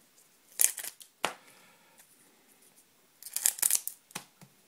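Scissors cutting the foil wrapper of a trading-card booster pack, with the foil crinkling and tearing. There are a couple of short sharp snips in the first second or so, a longer run of crinkling and tearing about three and a half seconds in, and one last short click.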